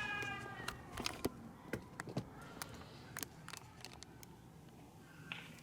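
Scattered sharp pops of firecrackers, about a dozen at irregular intervals.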